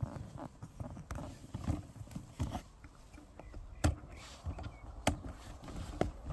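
Footsteps on a trail: irregular low thumps about one or two a second, with two sharper clicks in the second half.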